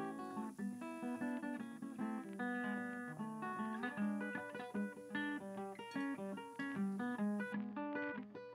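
Background music: an acoustic guitar playing a quick run of plucked notes and chords.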